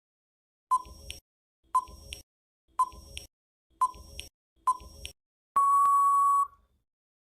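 Quiz countdown-timer sound effect: five short beeps about a second apart, then one long steady beep of about a second marking that the time to answer is up.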